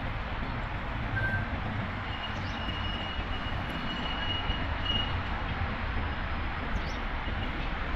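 Steady hum of city road traffic. A thin high tone sounds over it for about three seconds in the middle, with a brief one about a second in.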